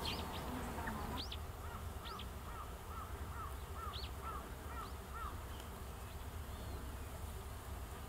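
A bird calling: a series of about ten short, identical, rising-and-falling call notes, about two and a half a second, that stop about five seconds in, with a few higher single notes from another bird. A steady low rumble runs underneath.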